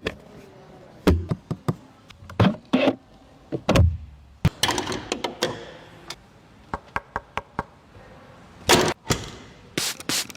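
A series of sharp clicks and knocks with several heavier thuds, about a second, two and a half, four and nine seconds in: a Ferrari 812 GTS's door and cabin being handled just before the engine is started.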